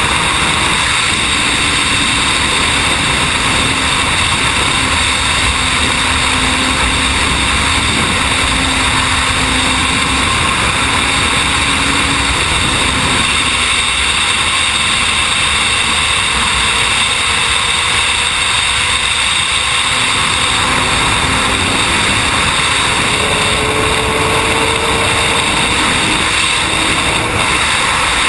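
Sport motorcycle running at high motorway speed: a steady rush of wind and road noise with the engine's note faint underneath, the note rising slightly near the end.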